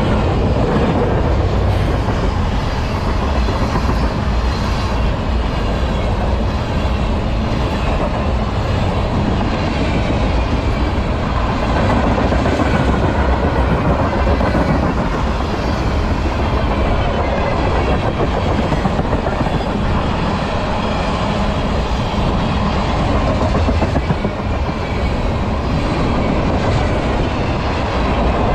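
Tank cars of a freight train rolling past close by: steel wheels running on the rails, loud and steady.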